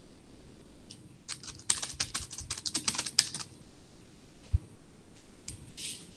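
Computer keyboard typing: a quick run of keystrokes for about two seconds, then a single low thump.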